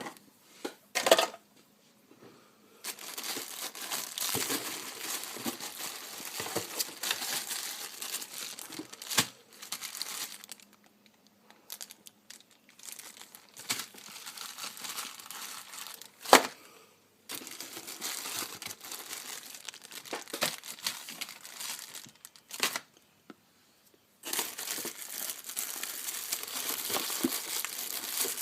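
Packaging being unwrapped by hand: long stretches of crinkling and tearing, stopping and starting, with a few sharp, loud snaps.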